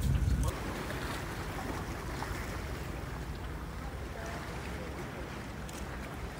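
Storm-tossed sea water washing and splashing, with wind, heard as an even rushing noise. In the first half second there is a louder low rumble of wind buffeting the microphone, and it cuts off abruptly.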